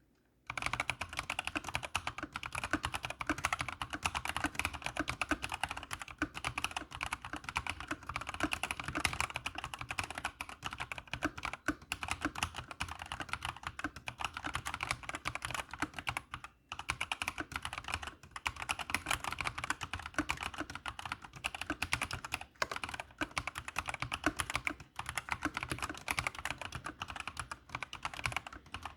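Asus ROG Strix Flare II Animate mechanical gaming keyboard being typed on quickly and continuously, a dense clatter of key switches. It stops briefly twice.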